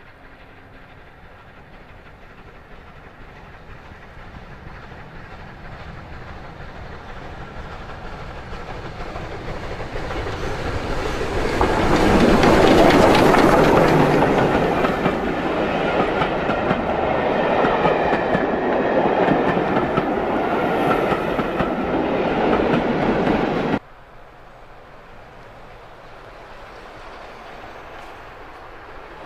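Bulleid Battle of Britain class Pacific steam locomotive 34053 working a train, growing louder as it approaches and loudest as the engine passes close, a little before halfway. Its coaches follow with a clickety-clack over the rail joints. About four-fifths of the way through the sound cuts off abruptly to a quieter, more distant approaching train.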